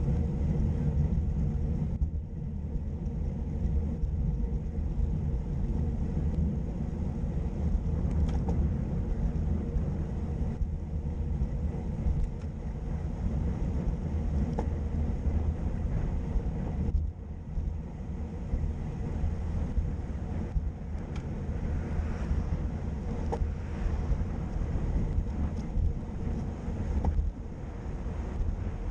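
Wind buffeting the microphone of a bicycle-mounted GoPro while riding, a steady low rumble, with road noise from the tyres on wet tarmac and a few faint ticks.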